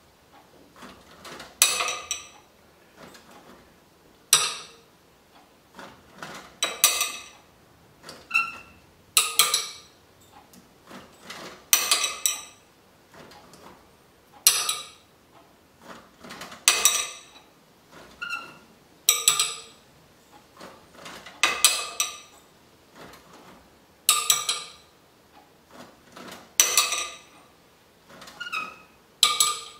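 A 3D-printed flying pendulum clock running: its string pendulum, weighted with steel nuts, swings around the steel rods and the mechanism gives a short burst of clinking and clattering about every two and a half seconds, with a fainter tick between some of the bursts.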